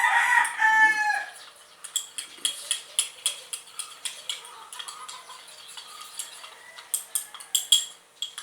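A loud bird call, about a second long and falling in pitch, then a spoon clinking and scraping in a bowl many times as hand-feeding formula is stirred together with warm water.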